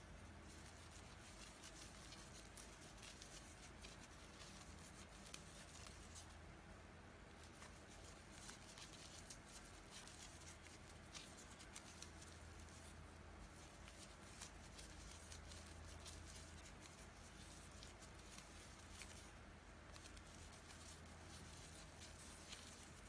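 Faint crinkling and crackling of raffia yarn being worked with a crochet hook: many small irregular clicks as the stiff strand is pulled through the stitches, over a low steady hum.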